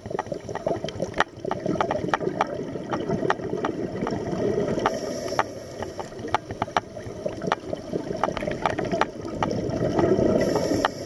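A scuba diver breathing through a regulator, heard underwater. Gurgling exhaled bubbles alternate with two hissing inhalations about five seconds apart, over a steady crackle of sharp, irregular clicks.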